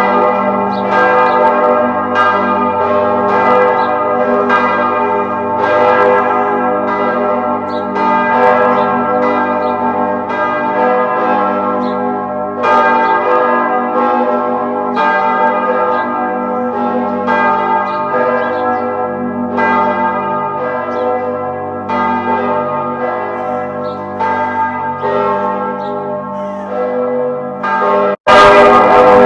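Church bells ringing: several bells struck one after another, each strike renewing a dense, overlapping hum of ringing tones. About a second before the end the sound cuts out for an instant and starts again louder.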